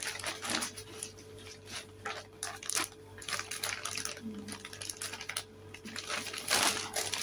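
Thin plastic shopping bag rustling and crinkling as it is handled and opened, in irregular crackles, loudest near the end.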